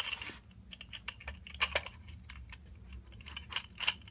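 Irregular small clicks and taps of a screwdriver and hard plastic parts being handled while a polymer 50-round drum magazine is taken apart, with a few louder knocks about a second and a half in and near the end.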